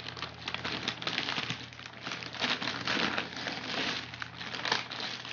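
Plastic snack packets crinkling and rustling as they are handled: a dense, continuous run of crackles.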